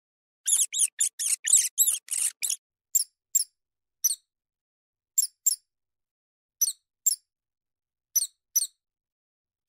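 Field mouse squeaking: a quick run of about eight high, sharp squeaks in the first couple of seconds, then single squeaks and pairs spaced about a second apart, with silence between them.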